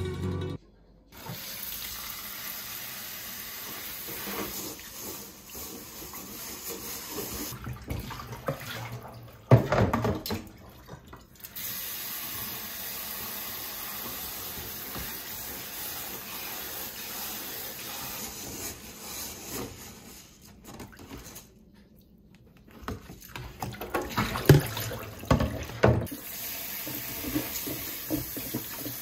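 Tap water running steadily into a stainless steel sink, pouring onto rice in a mesh strainer as the rice is rinsed. It dips briefly about three quarters of the way through, with a few louder knocks and splashes around ten seconds in and again near the end.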